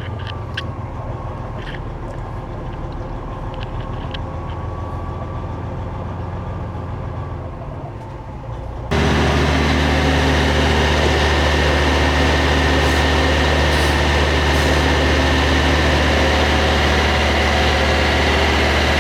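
Heavy diesel semi-truck engine idling steadily. About halfway through the sound abruptly becomes louder and fuller, still a steady idle.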